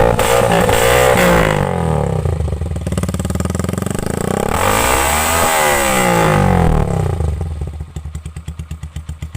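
Honda TMX125 motorcycle's single-cylinder engine revved through its exhaust pipe, the revs rising and falling, then dropping back to idle about eight seconds in with an even putting beat.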